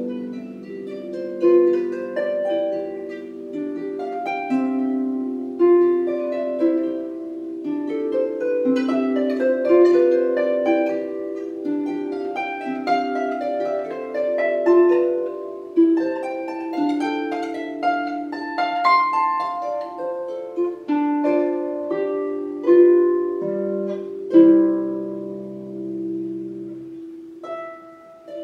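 Celtic lever harp played solo: plucked notes ring into one another in a slow, flowing melody over held bass notes, growing quieter near the end.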